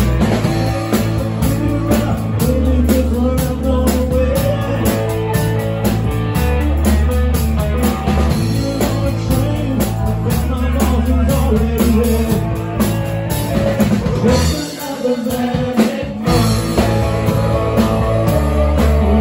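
Live rock band playing: electric guitar, bass, drum kit and singing. About three-quarters of the way through, the bass and drums drop out for a moment, then come back in.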